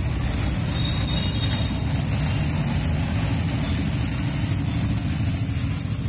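Gas welding torch flame burning steadily against a motorcycle's footrest bracket: a constant low rushing noise with no breaks.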